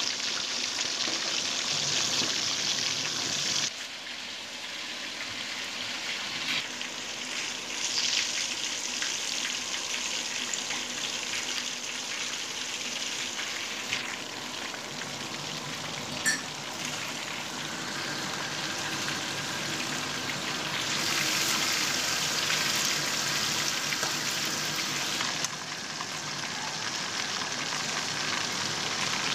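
Hamour fish deep-frying in hot ghee in a wok: a steady bubbling sizzle that is louder at the start and again for a few seconds about two-thirds of the way through, with one sharp click about halfway.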